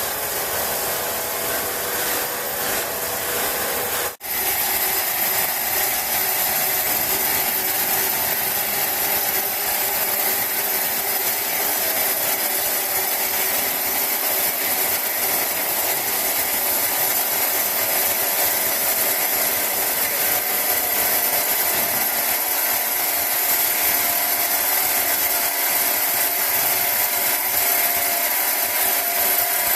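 Large sawmill saw running and cutting through wood, a steady whining hum with a strong high hiss. It breaks off abruptly for a split second about four seconds in, then carries on slightly louder.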